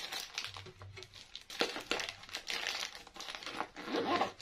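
Small toiletries and makeup being packed back into a fabric pouch: irregular crinkling and rustling, with light clicks of items knocking together.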